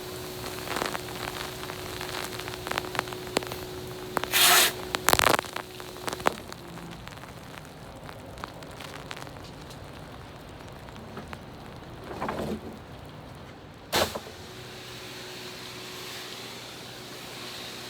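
Pressure washer wand spraying a low-pressure stream of sodium hypochlorite solution, a steady crackling hiss of water. A steady hum drops out about six seconds in and returns near the end, and two loud bumps come about five seconds in and near fourteen seconds.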